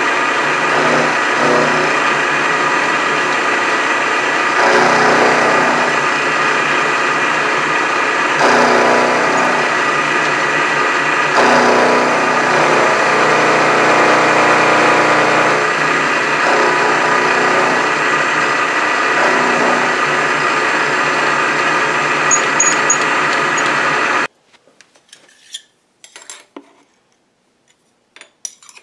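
Milling machine running, its end mill cutting a cold-rolled steel bar: a steady machining noise with a constant high whine, swelling a few times as the cut loads up. About 24 seconds in it cuts off suddenly, leaving only a few faint clicks and rubs as chips are swept off the vise.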